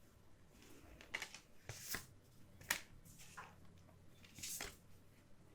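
Oracle deck cards being handled and turned over: a handful of short, soft swishes and ticks of card stock sliding and tapping.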